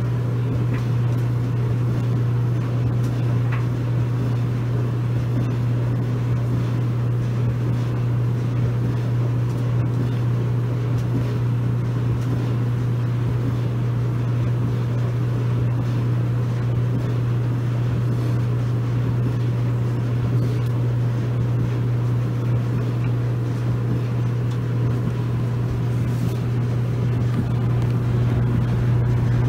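Maytag clothes dryer running mid-cycle: a steady, even hum from the motor and the turning drum.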